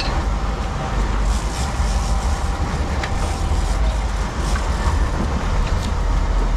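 Sport-fishing boat's engine running with a steady low drone, with wind noise on the microphone.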